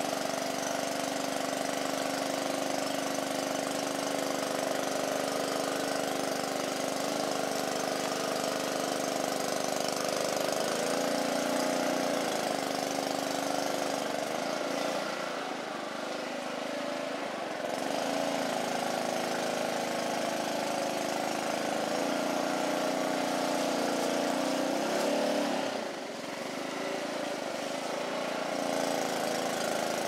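Small boat motor running steadily while the boat pushes through dense reeds and floating plants, easing off twice, around the middle and again near the end.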